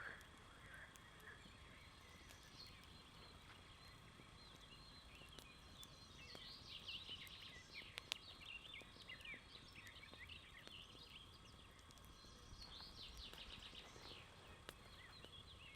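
Faint birdsong: quick bursts of rapid chirps in the middle and again near the end, over the steady outdoor background. A few sharp snaps from the burning bonfire wood, one louder about eight seconds in.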